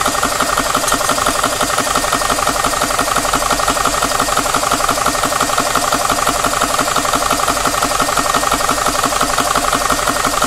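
Portable high-pressure PCP air compressor running steadily with a rapid, even pumping beat as it charges an air rifle's reservoir toward about 280 bar.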